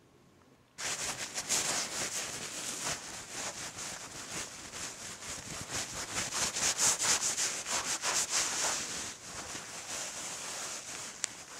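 A towel rubbed briskly over wet hair to dry it: continuous scrubbing with many quick strokes, starting about a second in. There is a single sharp tick near the end.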